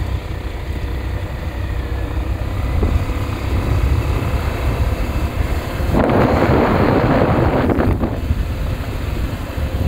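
Wind buffeting the microphone of a moving motorcycle, with the motorcycle's engine running steadily underneath. A louder rush of noise swells about six seconds in and lasts about two seconds.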